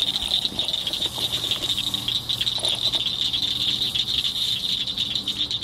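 Night insect chorus: a steady, high, rapidly pulsing buzz, with a faint low hum beneath from about a second in.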